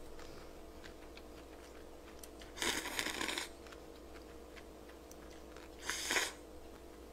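Cold buckwheat noodles (naengmyeon) slurped into the mouth in two short bursts about three seconds apart, with faint wet chewing clicks in between.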